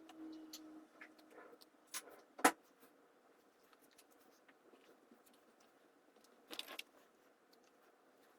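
Scattered light clicks and taps of small pieces being handled during miniature model building. There is one sharper knock about two and a half seconds in and a brief rattle about two-thirds of the way through.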